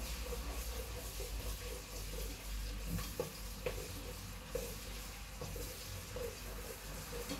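Food sizzling in a hot pan while it is stirred, with a few knocks of the utensil against the pan about three seconds in.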